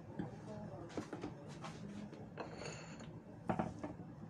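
Kitchen handling noises: a plastic tofu tray being handled and set down on the counter, with light clicks and rustles and one sharper knock about three and a half seconds in.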